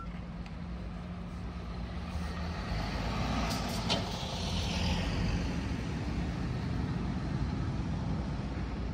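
Bus engine running steadily at idle, with a swell of rushing air or road noise that rises and fades about three to six seconds in, and a couple of sharp clicks around the middle.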